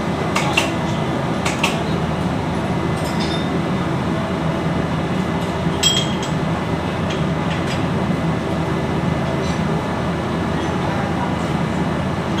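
A steady mechanical drone with a few sharp metallic clinks, typical of tools and metal parts being handled during a turbocharger overhaul.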